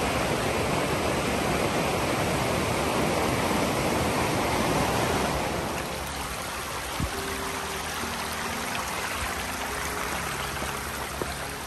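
Mountain stream water rushing over stones in a steady flow. It is louder at first and settles to a quieter flow about six seconds in.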